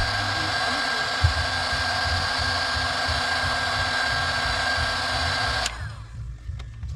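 Heat gun blowing steadily with a thin whine as it shrinks heat-shrink tubing over a repaired wire. It is switched off near the end, and the fan winds down with a falling whine.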